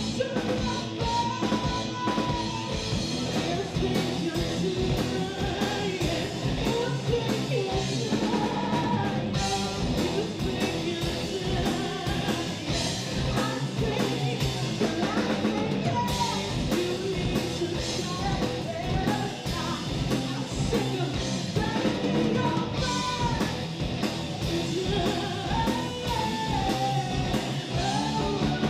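Live rock band playing: a woman sings over electric guitar, electric bass and a drum kit keeping a steady beat.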